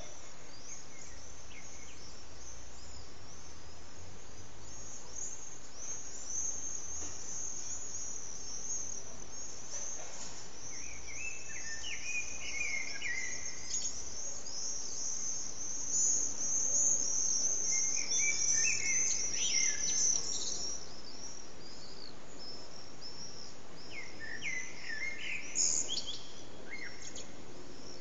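Common blackbird singing three short fluty phrases, a few seconds apart, over continuous high-pitched chirping from other birds.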